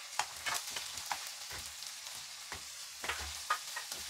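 Chopped vegetables sizzling in hot oil in a kadai while a slotted spatula stirs them, its strokes scraping against the pan at irregular intervals.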